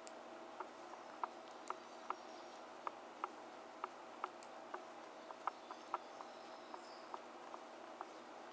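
Metal knitting needles clicking lightly against each other as knit stitches are worked one after another: small sharp clicks, about two to three a second at an uneven pace.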